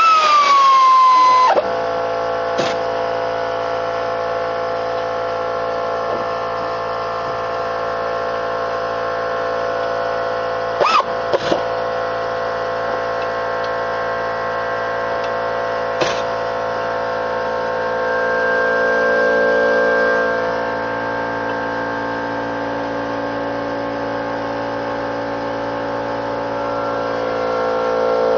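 A power tool whines and winds down over the first second or so as the brake caliper bracket bolts are tightened. Then a steady mechanical hum with several pitches runs on, broken by a few sharp clicks about ten and sixteen seconds in.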